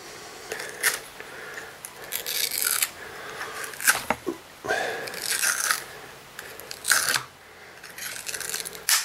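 Utility knife blade scraping and cutting through hair wound tightly around a Kirby vacuum brush roll, in about six short strokes with pauses between them.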